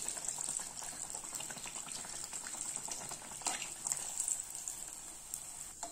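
Sweet appam deep-frying in hot oil in an aluminium kadai: a steady bubbling sizzle with fine crackles, and a few faint clicks as a slotted steel spoon turns the fritter over.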